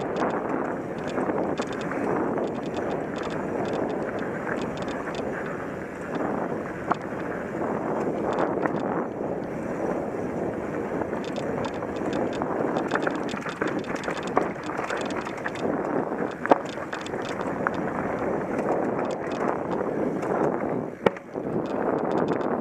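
Mountain bike riding fast down a dirt singletrack, with a steady rush of wind on the microphone over the tyres on dirt. Frequent small rattling clicks come from the bike, and a couple of sharper knocks land in the second half.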